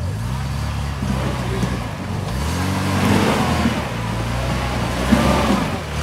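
Off-road vehicle engine revving under load, its pitch climbing at the start, dipping and climbing again about two seconds in, then rising once more near the end.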